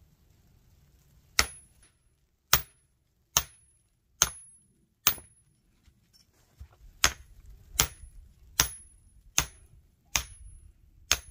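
A log being split into quarters for a Swedish torch: about eleven sharp strikes, a little under a second apart, with a pause of about two seconds midway. Each strike leaves a brief high ring.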